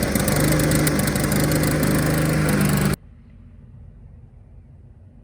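Honda walk-behind lawn mower engine running at idle, cutting off abruptly about three seconds in to a faint low hum.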